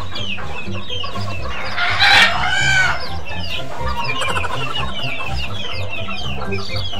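A flock of chickens clucking and calling continuously, with a louder rooster crow about two seconds in.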